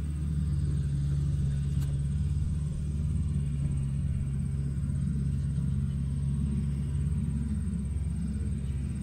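Diesel engine of a John Deere tracked forestry machine running steadily at a low idle, a continuous low drone.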